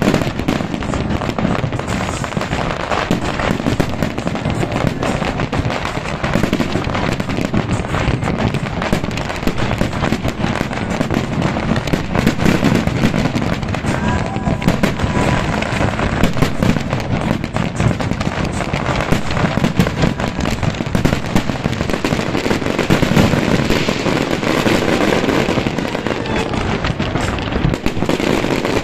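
Aerial fireworks going off in a dense, unbroken barrage of bangs and crackles.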